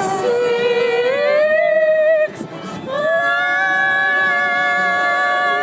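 A high voice singing two long held notes without accompaniment: the first slides upward, and after a short breath the second is held to the end with a wavering vibrato, closing out a made-up song.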